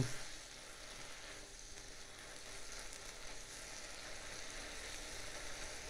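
Spinach and cream in a frying pan sizzling faintly and steadily as the cream comes up to a vigorous simmer to reduce.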